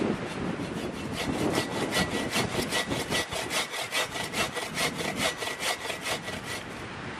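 Wood being sawn by hand with quick, even back-and-forth strokes, about four a second, with a faint steady high tone under them; the sawing stops shortly before the end.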